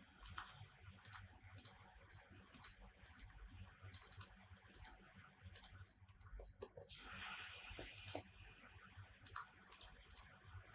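Faint computer mouse clicks, many of them at an irregular pace, over a low steady hiss.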